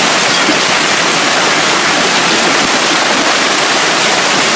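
Hailstorm: hail and heavy rain pelting down in a loud, steady, even rush of noise.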